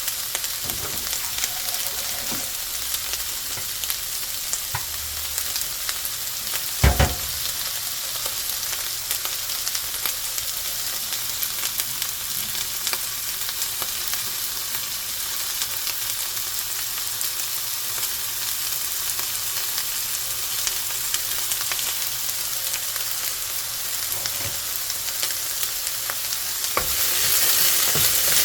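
Ingredients for sausage vegetable fried rice sizzling steadily in a frying pan as they are stir-fried. There is one sharp knock about a quarter of the way in, and the sizzle grows louder near the end.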